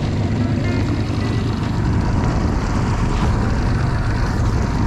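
Mercury 25 hp outboard motor running steadily, pushing the skiff along at trolling pace, with the hiss of water and wind over the boat.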